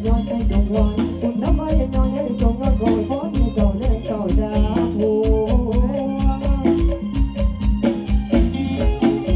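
Thai Isan luk thung band music with a steady bass-drum beat and a stepping melody, with a male singer singing into a handheld microphone over it.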